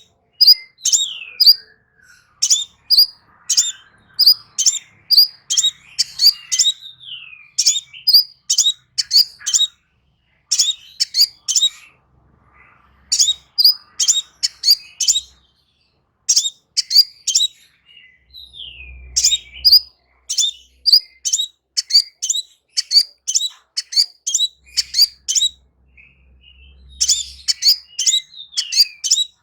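Crimson sunbird singing: rapid clusters of short, sharp, high-pitched chirps with a few sliding notes mixed in, broken by brief pauses about twelve and sixteen seconds in.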